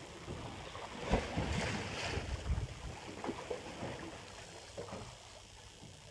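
Wind buffeting the microphone in irregular gusts over the wash of sea water around a small fishing boat's hull.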